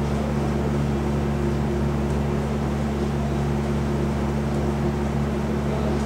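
A steady low hum of several fixed pitches under a faint hiss, unchanging throughout.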